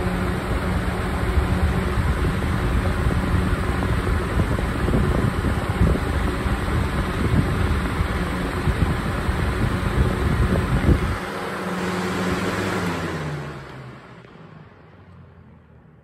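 A 20-inch House To Home box fan running close to the microphone, a steady rush of air with a motor hum and its airflow buffeting the microphone. About twelve seconds in the fan is switched off and winds down, its hum sinking in pitch as the sound fades away.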